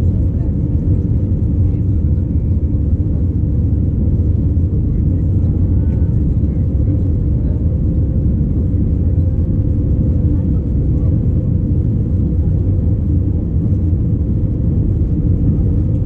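Steady cabin drone of an Airbus A319-111 in flight, heard from a window seat. Its CFM56 engines and the airflow over the fuselage make an even low rumble.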